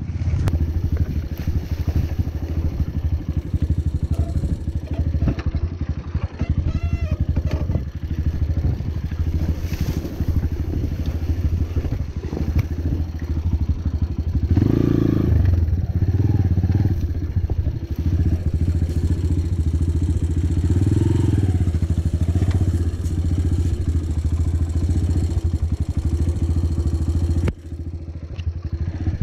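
Trail motorcycle engine running hard, its note swelling twice in the middle as the throttle is opened, then briefly dropping away near the end.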